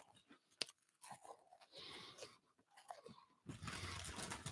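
Cheetos being chewed close to a microphone: faint, scattered crunching with a sharp click about half a second in and a louder stretch of crunching near the end.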